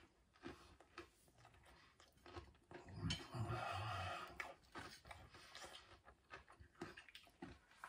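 Faint eating sounds: chewing a crispy coated chicken strip, with small clicks and a louder rubbing, scraping stretch from about three to four and a half seconds in.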